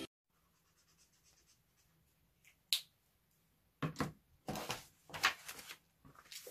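A single sharp click, then a short run of paper rustling and light knocks as a drawing pad is handled on a table and lifted up.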